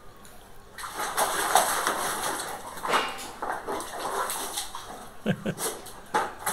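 Water splashing and sloshing in a plastic bucket as a Labrador retriever dunks its muzzle in and shakes its head about, starting about a second in and going in uneven bursts.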